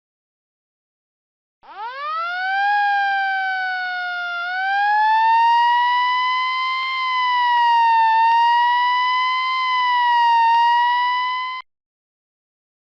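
A siren starts after a second and a half of silence and sweeps quickly up in pitch. It dips slightly, then climbs to a high, steady wail that wavers slowly up and down for about ten seconds before cutting off suddenly.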